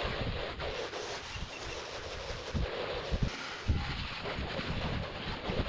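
Steady hiss of water spray from a pressure-washing rig's hose, switched on suddenly, with low wind buffeting on the microphone.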